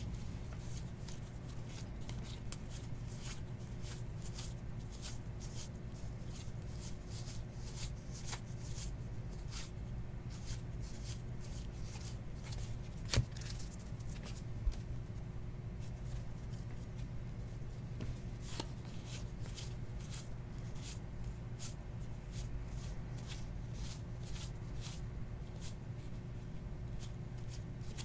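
Baseball trading cards being flipped one at a time through a hand-held stack, a quick flick of cardstock about twice a second. There is a sharper tap about halfway in, then another shortly after, over a steady low hum.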